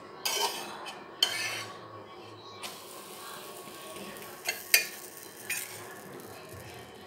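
Flat spatula scraping and clicking against a griddle as a pancake is lifted and flipped: a handful of short, sharp scrapes, over a faint steady sizzle of the cooking batter.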